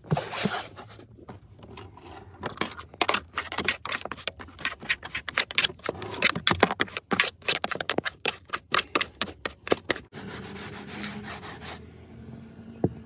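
Toothbrush bristles scrubbing a minivan's plastic interior trim in rapid back-and-forth strokes. The scrubbing stops abruptly about ten seconds in, leaving a quieter steady background with a faint low hum.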